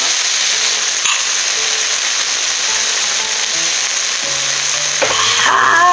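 Meat and mushrooms sizzling on an electric grill pan, a steady hiss.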